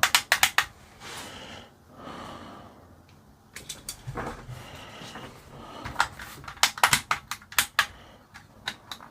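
Plastic buttons on a toy RC helicopter's handheld remote being pressed over and over, making quick runs of sharp clicks with short pauses between them.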